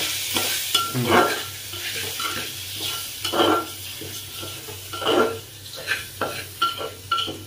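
A steel spoon stirring and scraping rice around an aluminium pressure cooker, with irregular scrapes and clinks against the metal. Under it is a steady sizzle of the rice frying in oil with onions and mushrooms.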